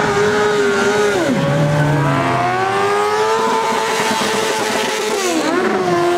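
Motorcycle engine held at high revs during a rear-tyre burnout. The revs drop sharply about a second in, climb back and hold, then dip briefly near the end.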